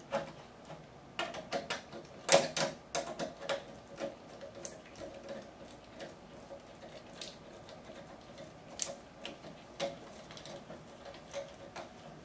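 Irregular metal clicks and ticks of a hand driver tightening quarter-inch bolts into the aluminium reflector of a thermal copier's lamp assembly, the loudest click about two seconds in.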